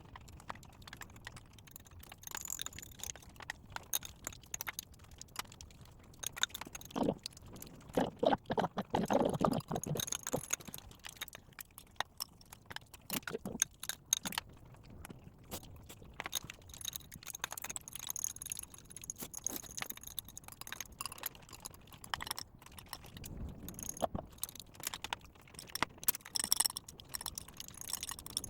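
Eating at a table: utensils clicking and clinking against dishes again and again, with chewing. There is a busier stretch of louder clatter and chewing about a third of the way in.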